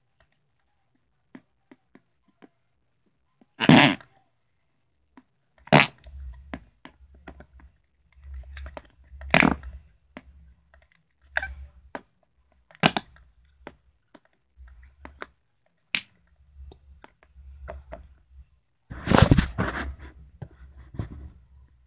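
Flarp noise putty being squished and pressed into its plastic tub, giving short squelching, fart-like noises at uneven intervals, with the longest and loudest one near the end.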